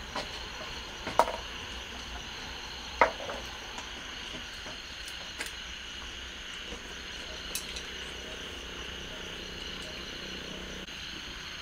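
Steady high chirring of a night cricket and insect chorus, with two sharp clinks about one and three seconds in and a few fainter clicks later.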